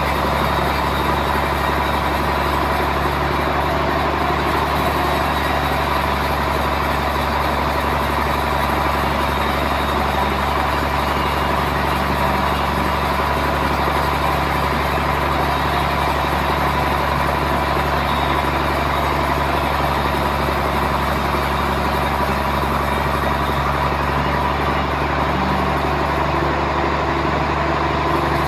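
Sawmill machinery running steadily: a constant low drone with a steady high whine on top, unbroken throughout.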